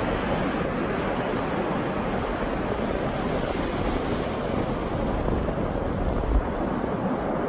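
Sea waves washing onto a shore, a steady rushing surf, with wind buffeting the microphone and one short low gust thump about six seconds in.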